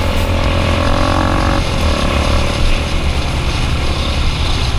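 Single-cylinder four-stroke trail motorcycle running at a steady cruise on a dirt road, heard from the bike with heavy wind buffeting on the microphone.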